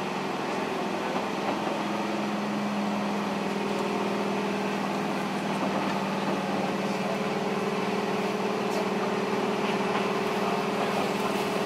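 Steady electrical hum inside an Eizan Electric Railway train car: a low hum with a higher tone held above it, over an even running noise.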